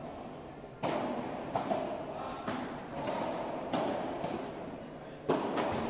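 Padel rally: a padel ball struck by padel rackets and bouncing on the court, a string of sharp hits about every half second to second, ringing out in a large hall.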